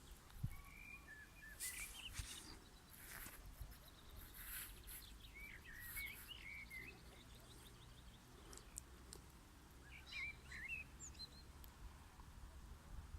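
Faint songbird song: several short warbling phrases with gaps between them, over a low background hiss, with a few brief bursts of hissing noise in the first few seconds.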